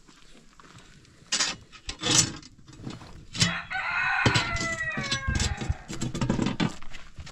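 A rooster crowing: one long call starting about three and a half seconds in, lasting around two seconds and falling in pitch toward its end. Several sharp, loud knocks come before it.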